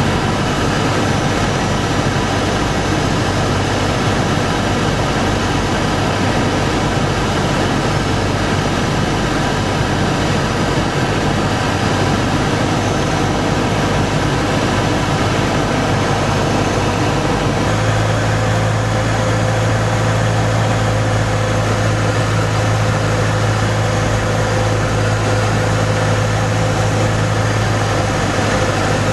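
Steady drone of a light aircraft's engine and propeller heard inside its cabin in flight. About eighteen seconds in the engine note shifts, and a low hum becomes stronger and steadier.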